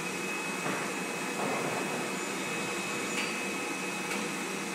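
Flatbed screen printing machine running: a steady whirring motor with a high whine that holds one pitch, and a couple of faint clicks from its control-panel buttons about three and four seconds in.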